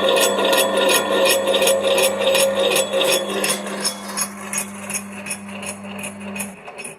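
CGT table-model grinder's 2.1 kW electric motor running with a steady hum and a regular high ticking about four to five times a second. The ticking fades over the second half, and the hum cuts out shortly before the end as the grinder is switched off.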